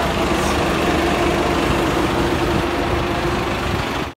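Volvo bus engine idling steadily, heard close to the rear engine grille, cutting off suddenly at the end.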